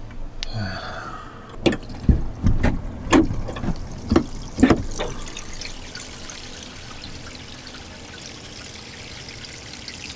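RV holding tank draining through the clear sewer elbow and hose, liquid running steadily. Several low thumps come in the first half.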